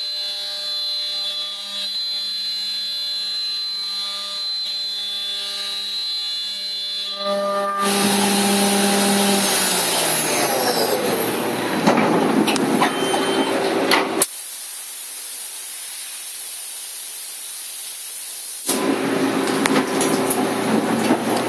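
CNC mill slotting aluminium with a half-inch high-helix carbide endmill spinning at 12,000 rpm under flood coolant. A steady pitched hum with a high ring over it runs for the first several seconds, then turns into a louder rough cutting noise with a few sharp ticks. This drops to a quieter steady hiss for about four seconds, and loud machining starts again near the end.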